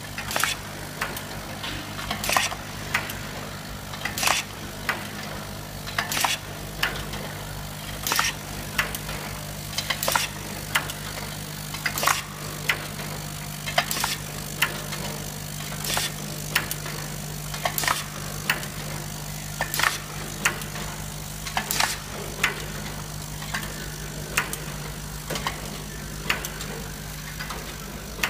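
Film overwrapping machine for cosmetic boxes running: a steady motor hum with a loud mechanical clack about every two seconds and lighter clicks in between as it cycles.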